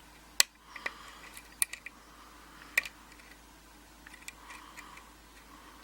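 Small sharp metallic clicks of a hook pick working the pin stack of a six-pin Russwin lock under very light tension: a few separate clicks, the loudest about half a second in and another strong one near three seconds, with fainter ticks between.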